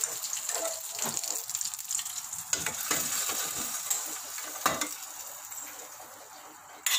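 A tempering of mustard seeds, urad dal, dried chillies and curry leaves sizzling and crackling in hot oil in a small kadai, the sizzle fading away. A few sharp metal knocks come through it, the loudest about two-thirds of the way through.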